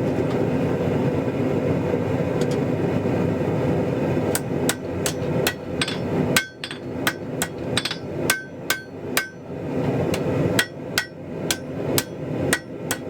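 A hand hammer striking hot mild steel bar on an anvil, about three ringing blows a second, starting about four seconds in with a short pause near two-thirds of the way through. This is the steel being bent and drawn while at forging heat. A steady rushing noise underlies the first half and stops about six seconds in.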